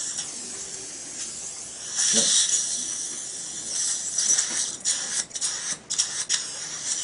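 High-pitched hiss of surgical suction and irrigation water at an implant osteotomy while the implant drill, fitted with a drill extension, bores deeper into the jawbone. The hiss swells about two seconds in and again around four seconds, then breaks off briefly several times.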